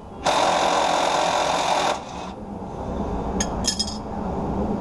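Ridgid 18V cordless impact wrench hammering for about a second and a half, breaking loose a rusty tow-hook bolt. A few sharp clicks follow about three and a half seconds in.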